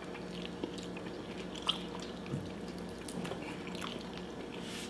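Close-miked chewing of a mouthful of soft taco dipped in alfredo sauce: wet, squishy mouth sounds with a few small clicks and smacks, over a faint steady hum.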